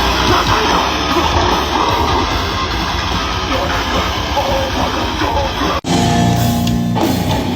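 Loud rock music with electric guitar. About three-quarters of the way through it breaks off abruptly and a different passage with held guitar chords begins.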